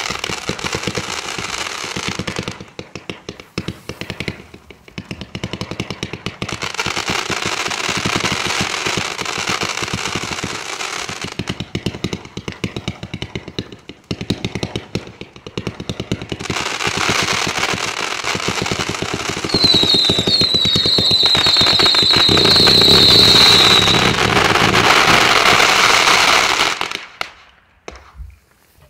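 A 300-shot fireworks cake firing: rapid volleys of shots and bursts in several runs separated by short lulls. Its loudest run comes in the last third, with a quick string of short high whistles, and the firing stops shortly before the end.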